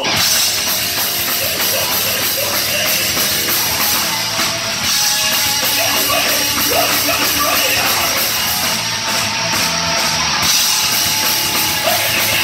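Heavy metal band playing live at full volume: distorted electric guitars, bass guitar and a pounding drum kit, with a vocalist singing into a microphone.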